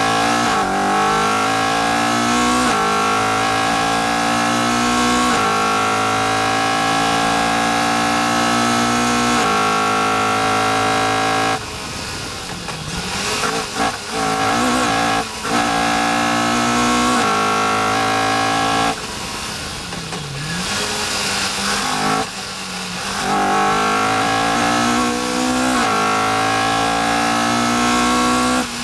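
Caterham R400's engine on full throttle, its pitch climbing and dropping back twice at upshifts, then held high. It lifts off twice for corners, going quieter with a few sharp cracks, and pulls hard again each time, with wind rushing past the open cockpit.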